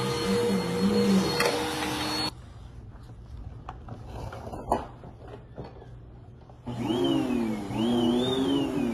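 Dirt Devil Vigor cyclonic vacuum cleaner running with a steady whine, cutting off abruptly about two seconds in. A few clicks and one sharp click follow, then the motor noise comes back near the end with a whine wavering up and down in pitch.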